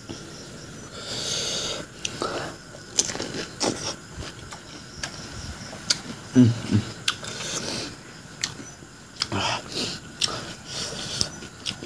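Close-up eating sounds of pani puri: crisp puris cracking and crunching between the teeth in a run of sharp clicks, with wet chewing and noisy breaths through the nose and mouth. There is a brief low sound about six and a half seconds in.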